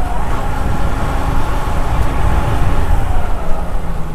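Motorcycle running, a steady low rumble on the rider's microphone.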